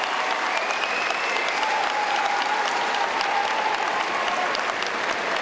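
Arena crowd applauding steadily, with a few voices calling out above the clapping.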